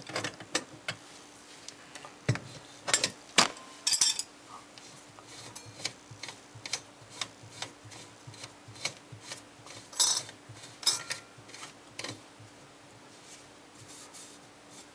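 Metal clinks, taps and scrapes of a wrench and hands on a chrome-plated sink P-trap as its slip nuts are loosened. It comes as an irregular run of sharp knocks, loudest about three to four seconds in and again around ten seconds in.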